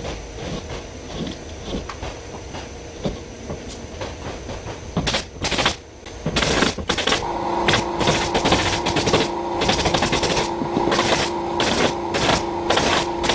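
Construction-site power tool: a steady motor whine starts about halfway through and keeps running, with repeated sharp, loud bursts over it. Faint knocking comes before.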